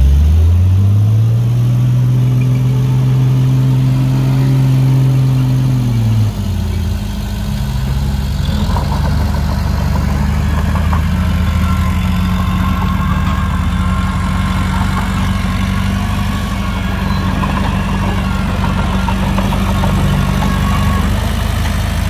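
Heavy diesel engine of earthmoving machinery revving up and holding high revs for about six seconds, then dropping sharply back to a steady lower run. From about eight seconds in, rattling and clatter join the engine.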